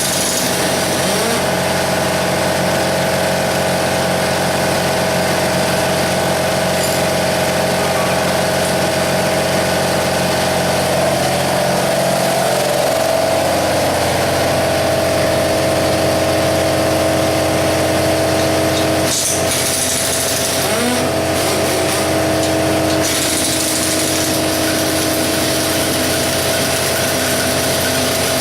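Air compressor running steadily with a continuous mechanical drone; its pitch pattern shifts slightly about halfway through.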